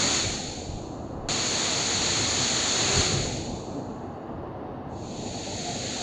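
Waterfall pouring into a rock plunge pool: a steady rush of falling water. The high hiss thins out twice, briefly near the start and again for a couple of seconds in the middle, while the low rumble carries on.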